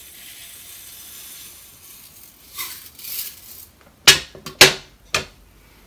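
Dry rice poured from a jug into a glass jug of oranges: a faint steady hiss with two louder rushes. Near the end come three sharp knocks as the jugs are set down on a glass-topped table.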